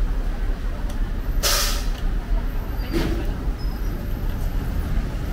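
Steady low rumble of street traffic, with one short, sharp hiss about a second and a half in.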